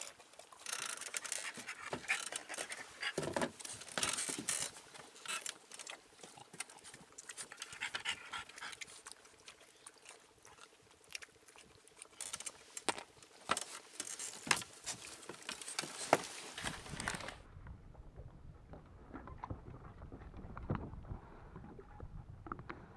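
French bulldog panting in rasping bursts, mixed with scattered sharp clicks as a hook and lure are worked free of a caught fish. About 17 seconds in the sound changes abruptly to a low, steady rumble.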